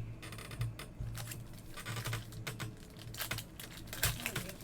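Baseball trading cards being handled and flipped through by hand: an irregular run of small clicks and slides.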